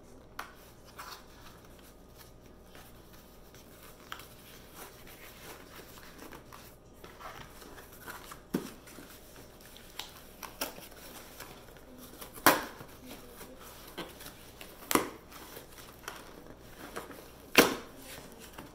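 Cardboard shipping box being pried and pulled open by hand: quiet scraping and rustling of cardboard with scattered sharp snaps as the packing tape and seams give, three louder snaps in the second half.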